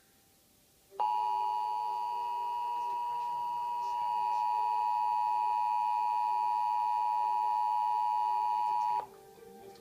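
Emergency Alert System attention signal: the steady two-tone alert tone, two pitches sounded together, starting about a second in and holding for about eight seconds before cutting off sharply. It announces an EAS alert, here a national periodic test.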